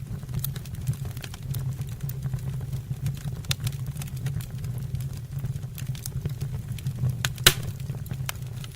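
Wood fire burning in a fireplace, with a steady low rumble of the flames and scattered crackles and pops of the logs, one sharp pop louder than the rest near the end.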